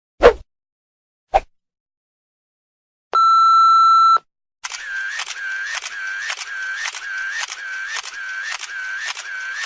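A run of stock sound effects: a short pop dropping in pitch, a brief click, a steady one-second electronic beep, then a repeating effect of clicks over a wavering tone, about two a second, for some five seconds.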